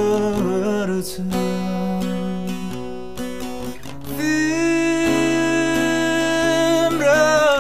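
Song played on strummed acoustic guitar, with long held melody notes in its second half that bend in pitch near the end.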